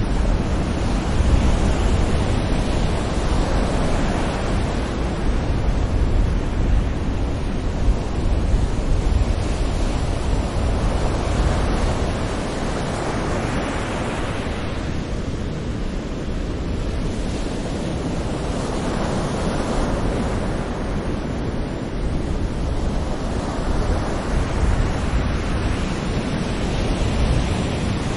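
Sea waves breaking and washing up on a shore, swelling and easing in slow surges several seconds apart over a steady low rumble.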